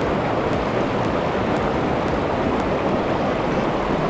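Steady rush of a mountain river's flowing current.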